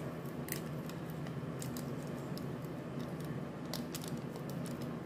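Small plastic sachet of jelly powder being torn open and handled over a thin plastic tray: light crinkles and ticks, bunched about half a second in, around two seconds in and near four seconds in, over a steady low hum.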